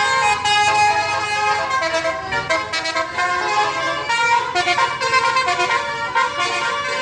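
Basuri multi-tone musical bus horn ('telolet') playing a tune, several horn notes sounding together and stepping from pitch to pitch.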